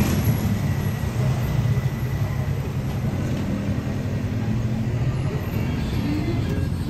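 Steady low rumble of vehicle noise, even and unbroken throughout.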